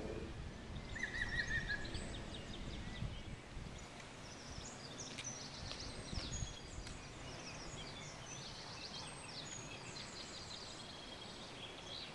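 Several small birds singing and calling outdoors: many short chirps and quick trills, over a low background rumble that eases after the first few seconds.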